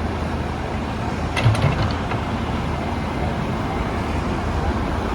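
Backhoe's diesel engine running with a steady low rumble, with a short run of sharp metallic clanks about a second and a half in.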